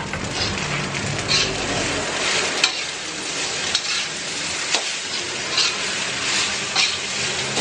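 Fried rice sizzling in a metal wok while a metal spatula stirs and tosses it, scraping and knocking against the pan every second or so.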